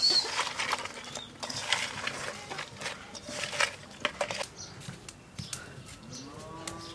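Hands mixing whole climbing perch with turmeric and salt in a steel bowl: quick wet squelches and clicks of fish against the metal for the first few seconds. Near the end a cow moos once, the call rising and then falling.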